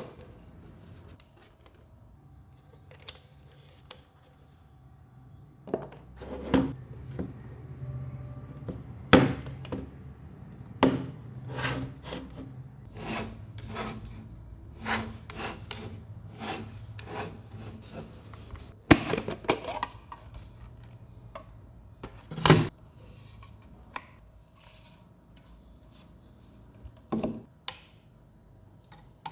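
Packaging and a small product being handled and unpacked: irregular rubbing and scraping, with a number of sharper knocks and clacks spread through.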